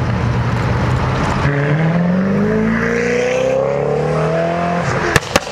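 Koenigsegg's twin-turbo V8 accelerating hard, its engine note climbing steadily in pitch for about three seconds, then two sharp cracks near the end.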